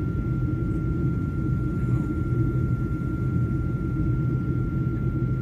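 Steady low engine rumble, like vehicle or aircraft noise, with a thin constant high tone over it and no change throughout.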